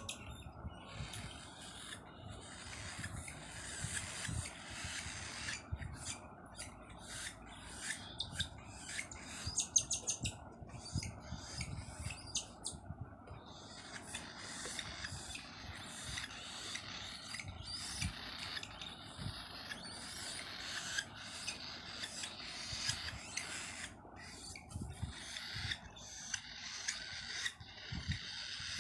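Captive parrots chirping and calling, with scratchy clicks and rustling among them.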